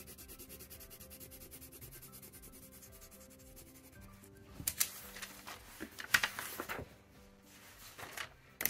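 Graphite pencil scribbling fast back and forth on tracing paper, an even scratching of many strokes a second as the back of the traced lettering is shaded over for transfer. About halfway through it gives way to louder, irregular rustling and scraping, with a sharp one near the end.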